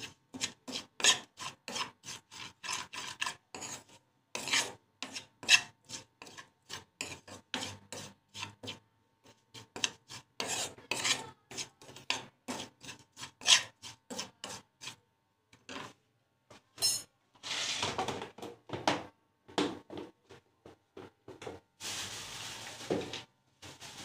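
Steel spoon scraping and stirring cumin seeds and ground spices around a metal frying pan as they roast on low heat: quick repeated scraping strokes with brief pauses, and a few longer scrapes near the end.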